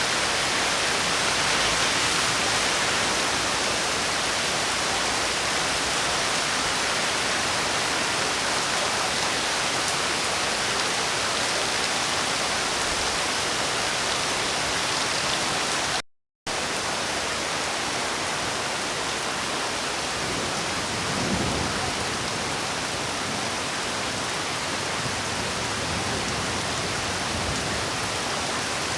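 Steady, even rainfall. About sixteen seconds in it cuts out to silence for a fraction of a second, then resumes slightly quieter.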